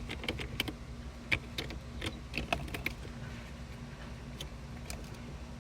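Irregular light clicks and taps of an old car gear shift knob being handled and worked off the shift lever, thickest in the first three seconds, over a low steady hum.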